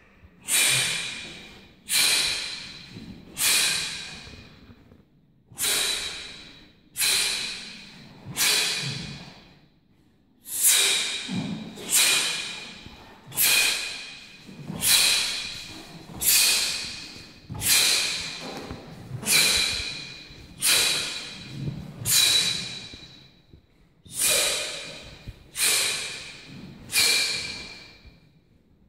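A man's sharp, forceful exhalations, one with each technique of a taekwondo pattern: about twenty breaths, each starting suddenly and trailing off over about a second, coming roughly one every one and a half seconds with a few short pauses.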